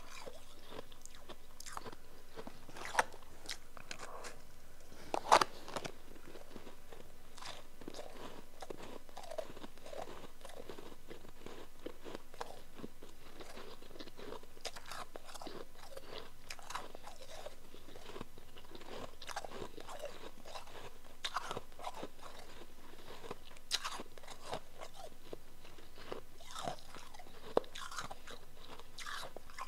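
Close-up crunching and chewing of powdery, chunky ice in the mouth: irregular sharp crunches throughout, the loudest a little after five seconds in.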